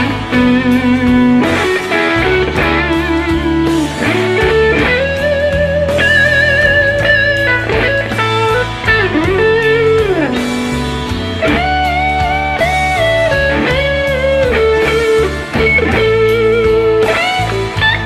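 Electric guitar played through a Wampler Tumnus Deluxe, a Klon-style overdrive pedal, into a Line 6 Flextone III XL amp. It plays a bluesy single-note lead line with string bends and held notes with vibrato.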